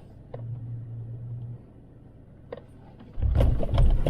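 Inside an off-road truck's cabin: a low steady engine hum while driving a rough dirt road, then about three seconds in the truck jolts over a rough bump with loud low thuds and rattles.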